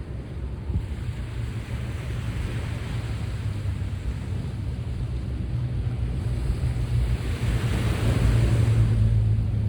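Sea waves washing onto the shore, one wave building and breaking loudest about eight seconds in. Wind buffets the microphone with a low rumble throughout.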